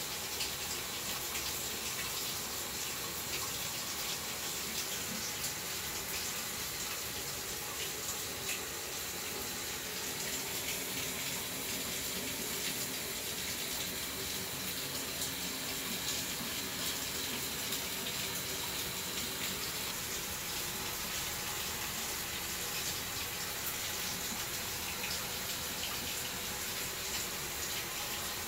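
Water running steadily from a tap, an even, unbroken rush.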